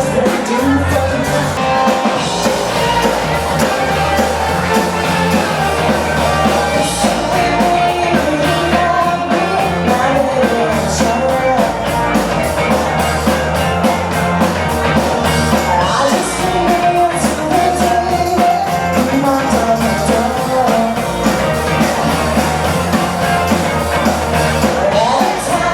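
Live rock band playing loudly with a singer.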